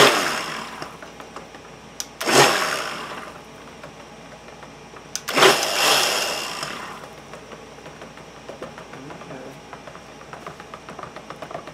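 Large stick blender run in short pulses in a plastic tub of soap batter (oils and lye solution): three brief bursts of whirring, each winding down within about a second. After that, quieter small knocks and stirring noises as the blender head is moved through the batter.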